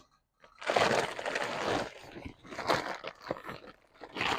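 Large bag of wild bird seed being handled, its packaging crinkling and rustling in several noisy stretches with the seed shifting inside.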